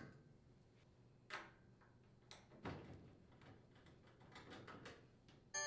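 Faint clicks and scrapes of a nut driver unthreading the screws on a washer's top panel, a few separate taps over the span. Near the end a chime begins, ringing as several steady tones.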